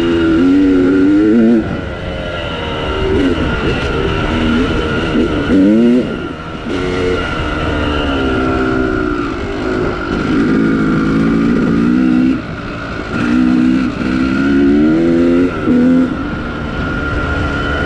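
Two-stroke Yamaha YZ250 dirt bike fitted with a 295 cc big-bore kit, ridden hard. The engine revs up again and again, its pitch climbing and then dropping with each throttle roll-off or gear change.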